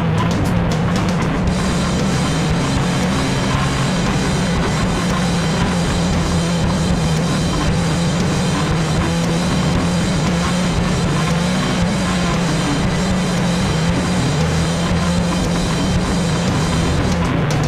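Rock music with a heavy drum kit beat.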